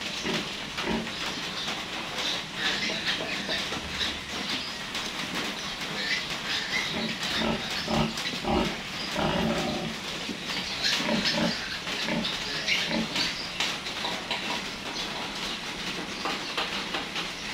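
A litter of newborn piglets squealing and grunting in short, irregular bursts.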